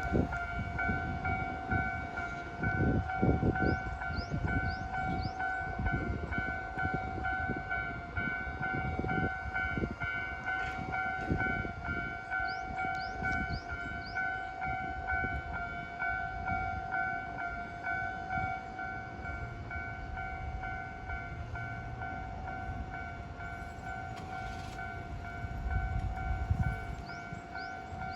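Level-crossing warning bell ringing in rapid, even strokes throughout, while a Kintetsu 8A series and 8600 series electric train passes over the crossing with a rumble and clatter of wheels on rail joints. The train noise is heaviest in the first ten seconds or so and eases off after that.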